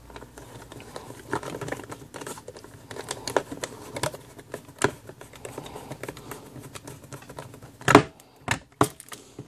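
Small screwdriver driving the battery-door screw into the plastic case of an Owon 18B digital multimeter: a run of irregular small clicks and scrapes, with one louder knock about eight seconds in.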